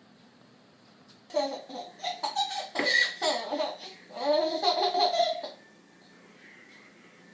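A person laughing in two bursts, starting about a second in and dying away about two seconds before the end.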